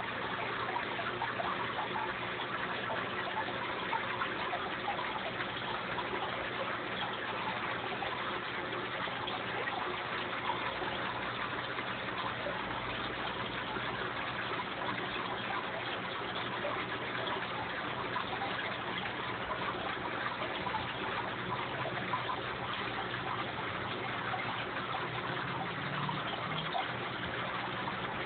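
Aquarium water bubbling and splashing steadily as a column of air bubbles rises and breaks at the churned surface, with a faint low hum underneath.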